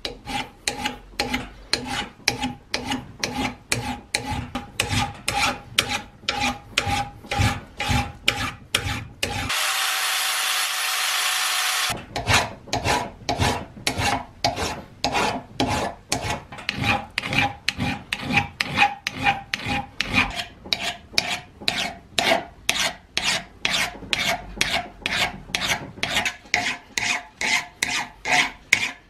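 Flat hand file rasping back and forth across the steel head of a 7 lb sledgehammer clamped in a vise, about two strokes a second, with a steady metallic ring under the strokes. For about two seconds near the middle the strokes give way to a loud, steady hiss.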